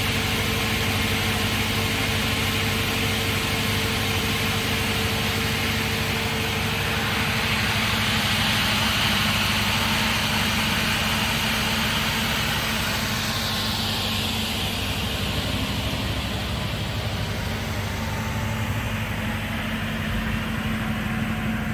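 Cosmec 250/100 crawler-feed multi-rip saw running steadily, its 15 kW main motor driving a shaft of circular blades with a steady hum. A hiss swells about a third of the way in and fades in the second half.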